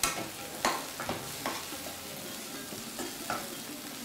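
Chopped baby corn, tomato and onion sautéing in hot oil in a non-stick kadai: a steady sizzle, with a spatula scraping and knocking against the pan about six times as the vegetables are stirred.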